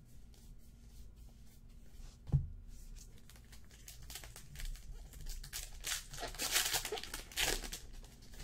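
A soft thump about two seconds in, then the foil wrapper of a Topps Archives Baseball trading card pack crinkling and tearing open in a run of rustling bursts through the second half.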